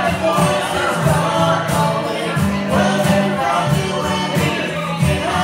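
A live acoustic trio playing a song: vocals sung into a microphone over strummed acoustic guitar and a steady box-drum (cajon) beat, amplified through a small PA.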